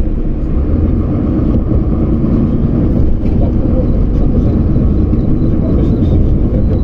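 Steady low engine and road rumble of a moving bus, heard from inside the cabin.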